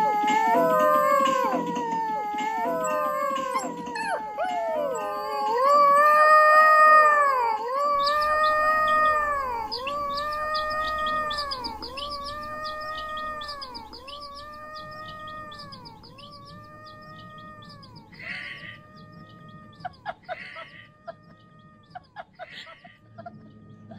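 Long, gliding animal calls, at first overlapping, then settling into a run of short arched calls about once a second that grow steadily fainter.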